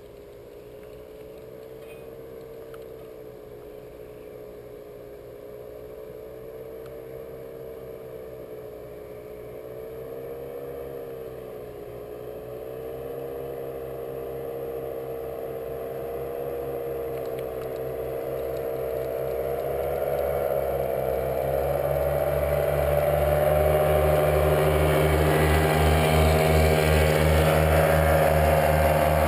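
Paramotor engine and propeller droning in flight, the pitch wavering up and down. It grows steadily louder as the craft flies in, with a deeper pulsing and a higher, brighter whine in the last few seconds as it passes close by.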